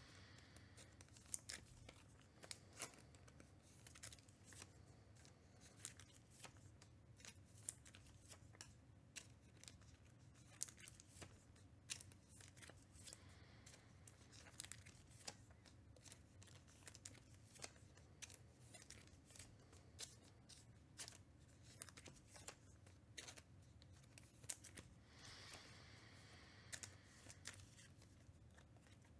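Faint, irregular clicks and light plastic rustles, a few a second, of trading cards being handled, sorted and slipped into soft plastic sleeves.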